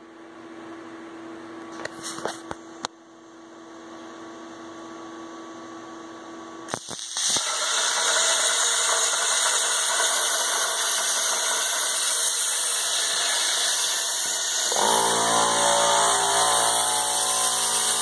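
CNC plasma cutter arc firing and cutting steel plate: a loud, steady hiss starts about seven seconds in, after a few clicks. A low buzzing hum joins under the hiss about fifteen seconds in.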